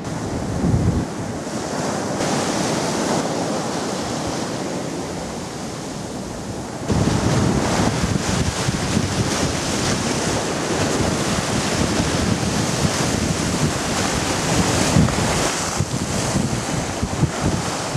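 Sea waves washing and churning, with wind buffeting the microphone in gusts. The noise gets louder and hissier about seven seconds in.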